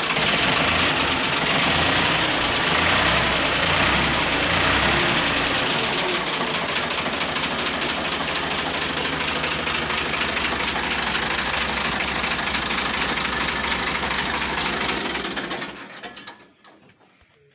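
Ford 3610 tractor's three-cylinder engine idling steadily, heard close up at the engine block, then shut off about sixteen seconds in, the sound dying away within a second.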